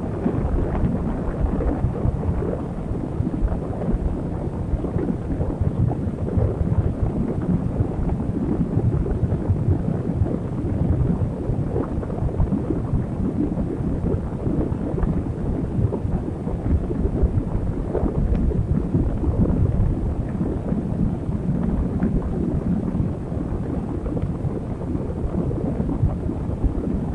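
Strong, gusty wind of a desert sandstorm buffeting the phone's microphone: a steady low rush that swells and eases without letting up.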